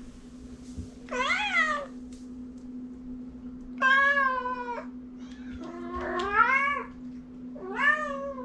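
A kitten giving four loud meows, each about a second long and arching up then down in pitch, calling up at a person for what he wants. A steady low hum runs underneath.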